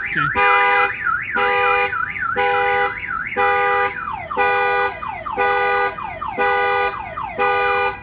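Excalibur 1670 car alarm going off on a Ford F-150, set off by opening the truck's rear lid. A horn honks about once a second over the siren. The siren runs a fast up-and-down warble, then changes about halfway through to quick falling chirps.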